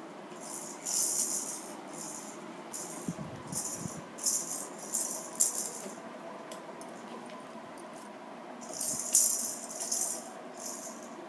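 Plastic baby rattle shaken in short bursts: a run of quick shakes over the first six seconds, a pause, then more shaking about nine seconds in.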